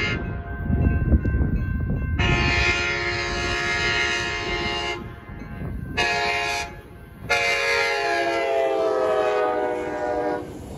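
Altamont Corridor Express commuter train's horn, sounded from the leading cab car for the grade crossing: a long blast, a short blast, then a final long blast whose pitch drops as the train passes (Doppler effect). The train's low rumble runs under it.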